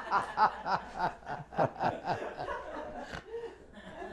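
Laughter at a joke's punchline: chuckles in quick, short pulses that thin out and fade near the end.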